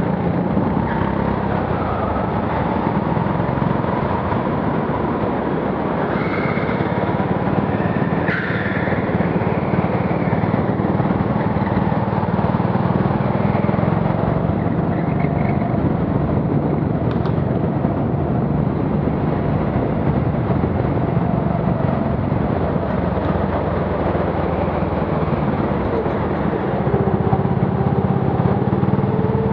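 Go-kart running at racing pace, heard from the driver's helmet: its motor drones steadily throughout.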